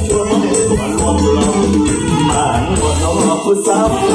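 Live mor lam music through a stage sound system: a steady dance beat with bass and shaker-like percussion, with a male singer on the microphone.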